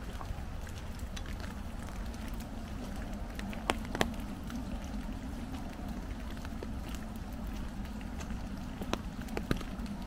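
Rain falling on an umbrella: scattered drops tapping on the canopy, with a few sharper taps about four seconds in and near the end, over footsteps along a wet gravel path and a low wind rumble.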